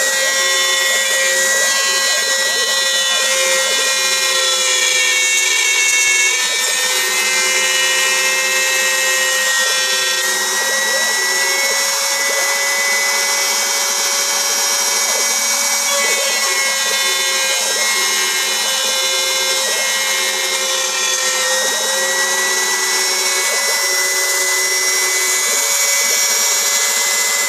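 CNC router spindle running at high speed while carving, a steady high whine with a cutting hiss, its pitch dipping slightly now and then as the load on the bit changes.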